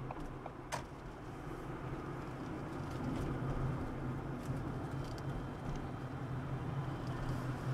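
A car running: a steady low hum with a haze of noise that grows a little louder about three seconds in. A single sharp click sounds under a second in.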